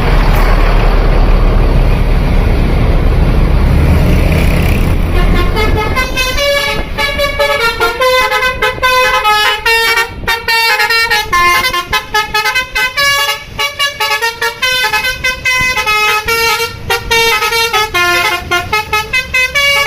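Loud rumble of a bus going by for the first several seconds, then from about six seconds in a Basuri telolet bus horn plays a fast tune of many short notes that jump up and down in pitch.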